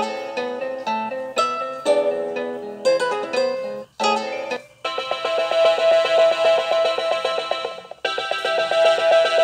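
Phone ringtones: a short melody of plucked, guitar-like notes plays through, breaks off and starts over about four seconds in, then is cut off. A different ringtone follows just before five seconds in, a sustained chiming tone with a fast pulsing pattern that stops briefly near eight seconds and starts over.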